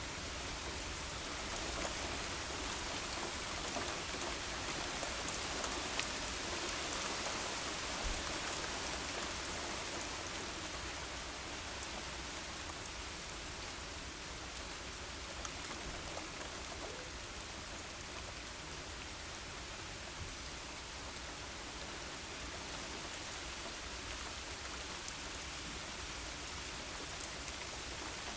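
Steady rain falling, an even hiss of drops on a surface, slightly louder in the first several seconds.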